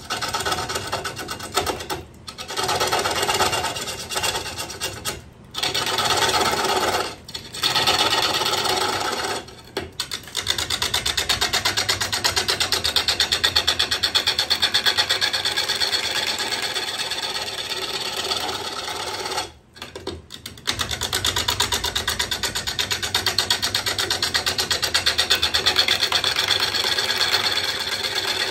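Turning gouge cutting a spinning red cedar bowl blank on a wood lathe: a continuous rasping hiss of shavings coming off, with a fine rapid flutter from each turn of the blank. It breaks off briefly several times in the first ten seconds and once about twenty seconds in, as the tool is lifted from the wood.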